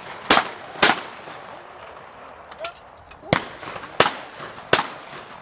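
Shotgun shots at clay targets: two shots about half a second apart near the start, then three more about 0.7 s apart in the second half.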